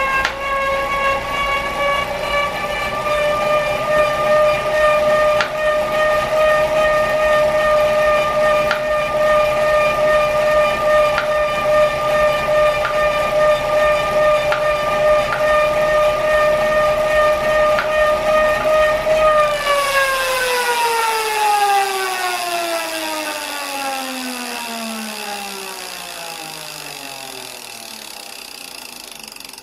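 Wahoo Kickr smart trainer's flywheel running at steady speed with a loud whine and overtones, and a few faint clicks. About two-thirds of the way through, the whine glides steadily down in pitch and fades as the flywheel spins down, with a light hiss joining in.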